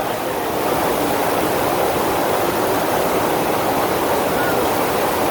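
Steady rushing of the FlowRider's pumped sheet of water pouring up and over the wave surface.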